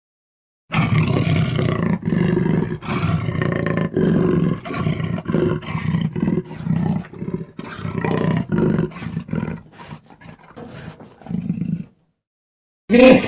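Animal roar sound effect used as the voice of a cartoon rhino: a long run of rough, low roars broken by short gaps, starting about a second in and cutting off shortly before the end.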